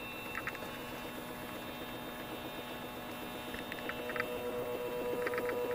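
NEMA 17 stepper motor running at a constant step rate on a Pololu driver, giving a steady pitched hum. The hum grows louder in the second half as the driver current is turned up.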